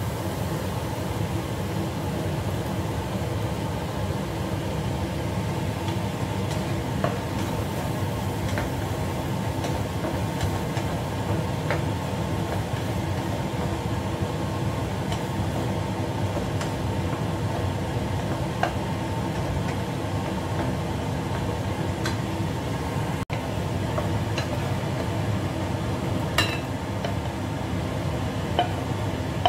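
Wooden spatula stirring and tossing tomato-and-egg stir-fry in a nonstick wok, with scattered light knocks of spatula on pan, over a steady hiss and hum. Near the end the food is scraped off the wok onto a plate.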